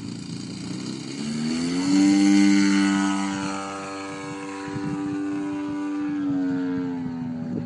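DLE-55 single-cylinder two-stroke petrol engine of a Sebart Su-29 radio-controlled aerobatic plane running at full throttle on the takeoff roll and climb-out. The pitch rises about a second in, the sound is loudest about two seconds in, then it runs steady and drops slightly in pitch near the end.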